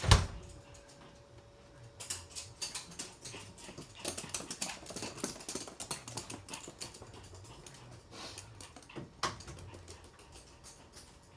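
Toy poodles' claws clicking rapidly on a hard laminate floor as they run, in quick irregular taps that thin out near the end. A single sharp knock comes right at the start.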